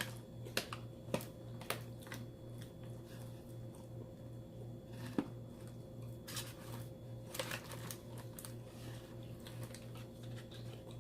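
Close-miked eating: chewing with wet mouth clicks and smacks, a few sharper clicks about half a second apart near the start and another cluster past the middle, over a steady low hum.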